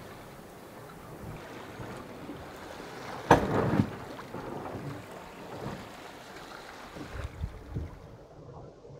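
Sailboat under way: a steady wash of water along the hull with wind, and one loud thump about three seconds in. The sound turns duller near the end.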